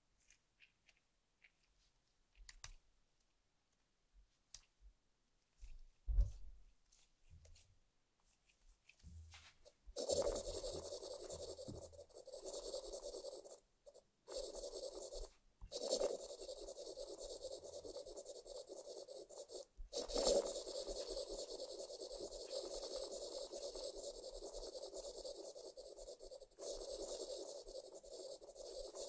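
Stylus tip scratching across a tablet's glass screen while colouring in: steady scratching in long strokes from about a third of the way in, with a few short breaks. Before that, a few faint taps and one soft thump from handling the tablet.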